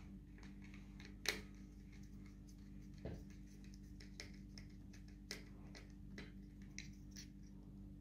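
Faint, scattered clicks and taps of a small screwdriver working the screws of a light fitting's plastic terminal block and handling the wires, over a steady low hum.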